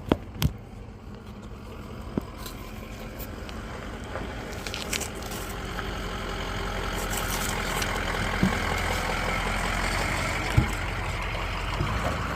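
A motor vehicle engine running steadily, growing louder over several seconds and then holding, with a few sharp clicks and knocks over it.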